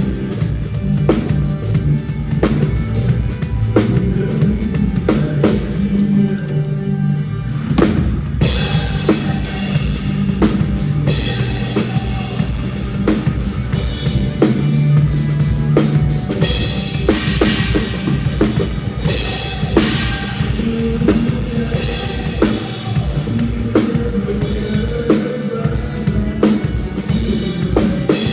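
Drum kit played with kick, snare and cymbals over a band backing with a bass line; a steady rock/pop groove.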